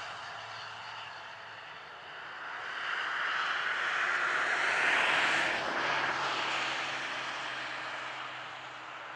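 A vehicle passing by, a broad rushing noise that swells to its loudest about five seconds in and then fades away.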